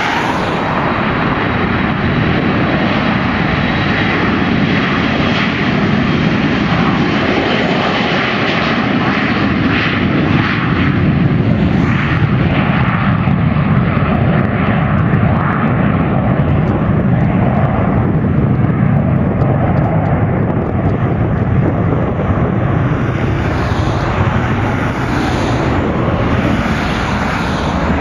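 Boeing 737-200 Advanced's Pratt & Whitney JT8D turbofan engines at takeoff power, running loud and steady through the takeoff roll as the jet accelerates down the runway and lifts off near the end.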